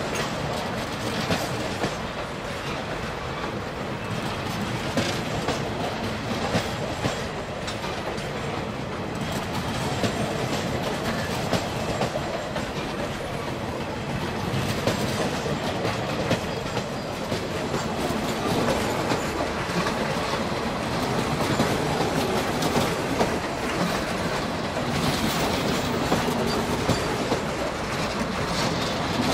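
Passenger train coaches rolling slowly past, their steel wheels clicking and knocking over rail joints in a steady clickety-clack.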